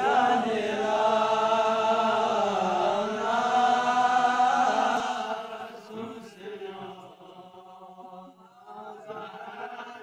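A Balti qasida, a devotional poem, chanted by voice in long, drawn-out notes that waver in pitch. It is loud for the first five seconds or so, then falls much quieter, with only a faint chanted voice going on near the end.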